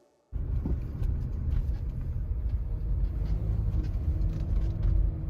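Steady low rumble of a car on the move, engine and road noise, cutting in suddenly just after the start.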